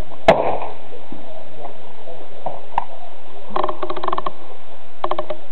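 A single rifle shot about a third of a second in, echoing briefly across the range, fired at steel gong targets. Later come a faint click and two short runs of rapid clicking.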